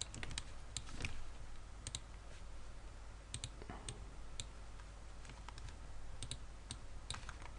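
Faint, scattered clicks of a computer mouse, irregularly spaced, over a low steady hiss, as anchor points are picked and dragged.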